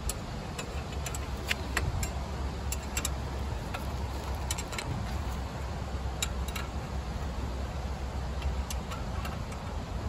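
Irregular metallic clicks of a hand ratchet wrench cranking a ball joint press screw to seat a lower ball joint, over a steady low rumble.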